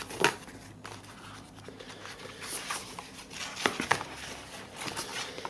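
A small cardboard documentation box being opened and its paper contents handled: scattered light knocks, clicks and rustles, the sharpest about a quarter second in and just before four seconds in.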